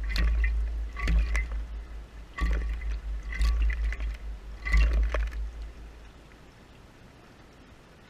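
Brown thrasher bathing in a shallow glass bird bath, splashing water with its wings and body in several quick bouts, each with a deep rumble. The splashing stops about six seconds in.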